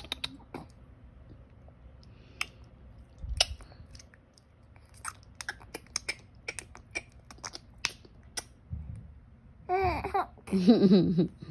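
Infant babbling and laughing in high, sing-song bursts near the end, after a quieter stretch of scattered small clicks and taps.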